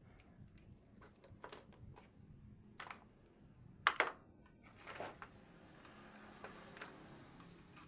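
Scattered light clicks and taps from handling a smartphone and small repair tools on a workbench, with one sharper click about four seconds in and a soft rustle after it.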